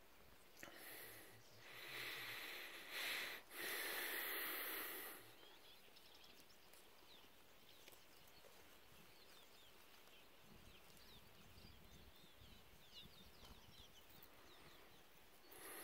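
Breath blown in three rushing puffs over the first five seconds, the last the longest: people blowing their breath into coca-leaf quintos. Then quiet outdoor air with faint, high bird chirps, and another puff near the end.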